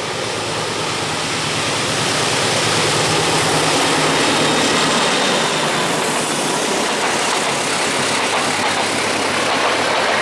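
A train approaching along the track: a dense rush of noise with a low engine hum, growing louder over the first few seconds and then holding steady.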